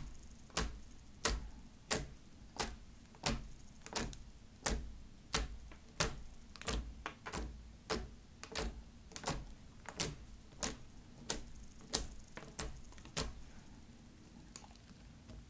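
Long fingernail tips poking down through a thin layer of slime and clicking against a wooden tabletop, in an even run of sharp clicks about three every two seconds. The clicks stop near the end.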